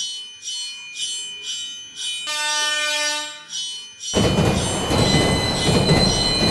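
Railroad crossing warning bell ringing about twice a second, then a train horn sounding for about a second. About four seconds in, a loud rushing noise of a train passing takes over.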